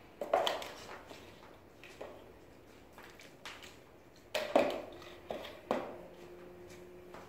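Paint flung onto paper on a worktable: a sharp splat about a quarter second in, then several more sharp knocks and taps, most of them bunched around the middle. A faint low hum comes in about five seconds in.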